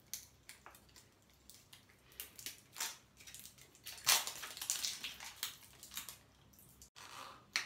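Small plastic slime pots being handled and opened by hand: irregular crackles and clicks of plastic, densest and loudest for about a second in the middle.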